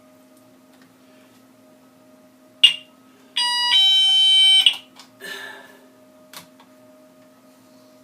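Telco S084 hanging door alarm in chime mode, giving a two-note electronic chime: a short higher note, then a longer lower one, like a ding-dong. It is set off by a sharp knock just before.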